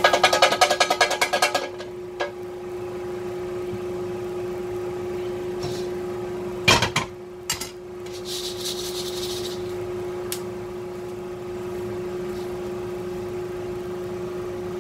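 Freshly roasted coffee beans poured from a double-sided fish frying pan into a stainless steel mesh strainer: a quick, dense rattle for about two seconds as the finished roast is dumped out to cool. About halfway through come two sharp knocks, then a brief rustle of the beans in the strainer. A steady hum runs underneath throughout.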